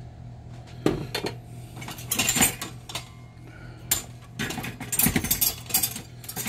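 Clinks, knocks and clatter of kitchen things being handled on a glass-top stove: a glass oil bottle being capped and set down, and utensils against a bowl. Separate knocks come in the first half, with a longer clatter in the second half.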